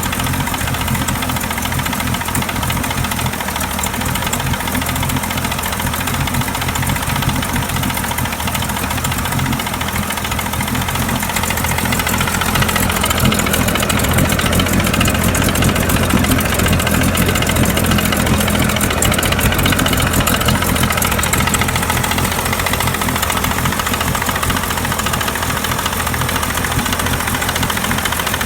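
1999 Mercury 40 hp motor running steadily with a knock, which the owner cannot place between the engine and the outdrive. It runs a little louder from about twelve seconds in, then eases back.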